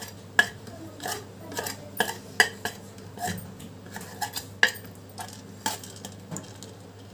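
A metal spoon scraping and tapping on a stainless steel plate as spice powder is pushed off it into a pressure cooker. It makes an irregular string of sharp clinks and scrapes, a few of them louder.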